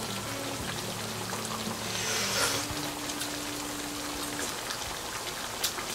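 Tomato sauce simmering in a pot around pieces of chicken: a steady, soft bubbling and sizzling hiss, a little louder about two seconds in.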